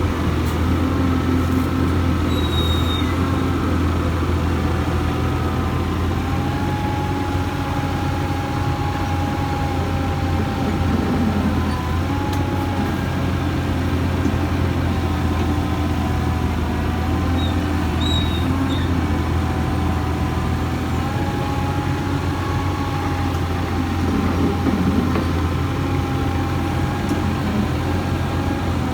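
Hyundai Robex 220-9SH excavator's diesel engine running steadily under work, a deep hum with a higher whine that wavers slightly up and down.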